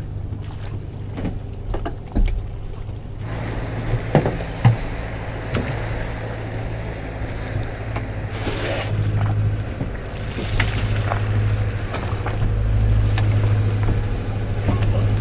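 Engine of a rigid inflatable patrol boat running at low speed as it comes alongside, a steady low hum that grows louder in the second half. A few sharp knocks sound about four to five seconds in.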